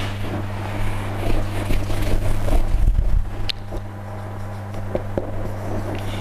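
Marker pen writing on a whiteboard, with scratchy rubbing and rustling close to the microphone, over a steady low electrical hum.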